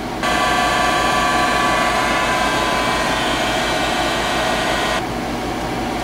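Electric heat gun switched on, running steadily with a whining fan for about five seconds, then switched off, shrinking heat-shrink tubing onto battery cable lugs.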